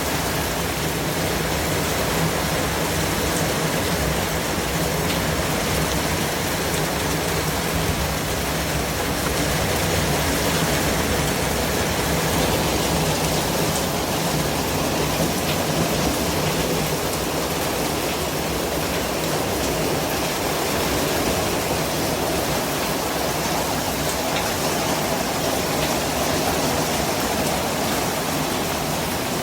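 Continuous white noise: a steady, even hiss spread across low and high pitches, holding a constant level.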